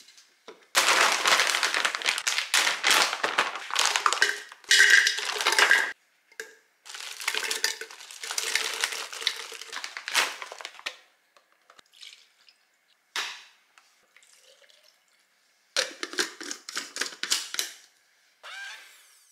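Frozen berries clattering into a blender jar as they are tipped in from a bag, in two long runs of dense rattling. Near the end there is a shorter bout of clicking as the blade base is screwed onto the jar.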